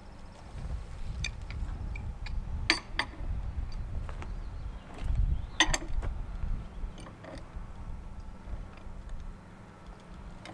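Galvanized steel pipe rung being turned into a threaded floor flange with a pipe wrench, giving creaks of the threads and two pairs of sharp metal clinks, a few seconds in and again just past the middle, under a low rumble.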